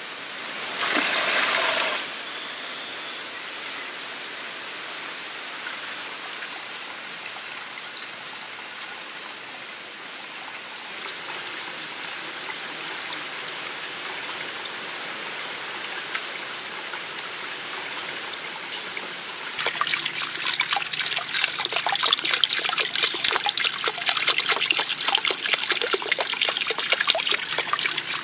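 Water trickling from a bamboo spout into a small pond in a steady hiss. There is a brief louder rush about a second in. From about two-thirds of the way through, the splashing turns louder and more crackly.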